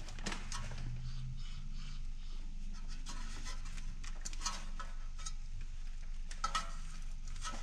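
Light rubbing and faint metallic clicks from a 1989 Toyota pickup's front brake rotor and wheel hub being pushed in and pulled out by hand to check wheel bearing end play, with a low steady hum underneath.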